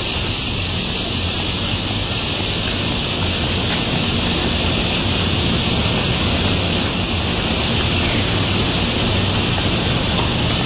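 Steady road and wind noise from a vehicle moving along a street: a constant rushing hiss over a low hum.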